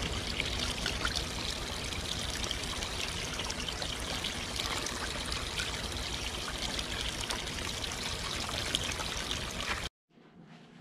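Steady sound of running, trickling water with many small splashes, which cuts off abruptly near the end.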